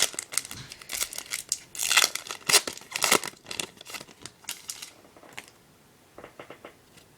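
Foil trading-card pack wrapper being torn open and crinkled, in quick rustles. Near the end come a few faint short ticks.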